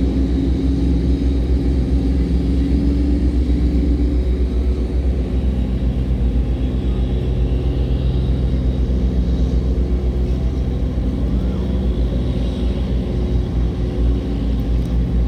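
River tugboat diesel engines running steadily under heavy load while towing a cargo barge upstream against a flood current: a deep, fast-pulsing engine hum.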